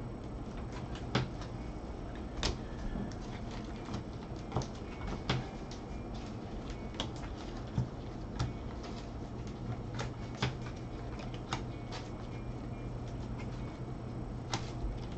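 Bowman baseball cards being flipped through one at a time in a gloved hand, each card giving a sharp click, about a dozen at irregular intervals, over a steady low hum.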